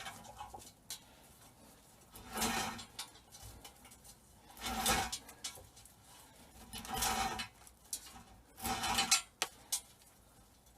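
Flex cable being pulled through a clamped stripping block whose sharpened drill bit scores the plastic sheath: a short scraping rub with each pull, four pulls about two and a half seconds apart.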